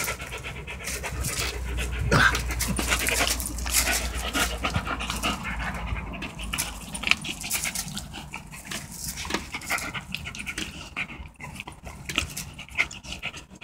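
German Shepherd dog panting hard while tugging and biting on a rubber toy, with a quick run of short rustles and knocks from the toy and handling.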